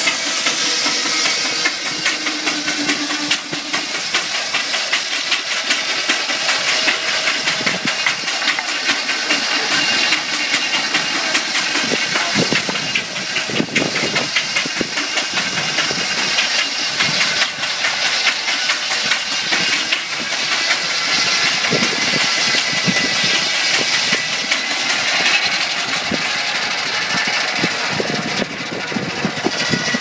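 Steam traction engine running with steam hissing, driving a large circular saw bench as its blade rips steadily along a log.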